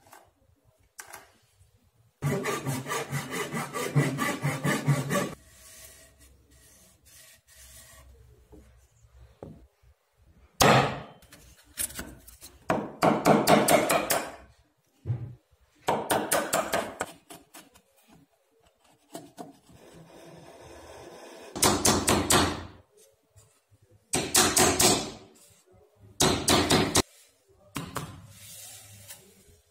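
Hand-tool woodworking: a run of short bursts of cutting and scraping on softwood as a Stanley bench chisel pares out a dovetail socket, with quieter knocks and handling of the wood between. The longest burst comes a couple of seconds in and lasts about three seconds.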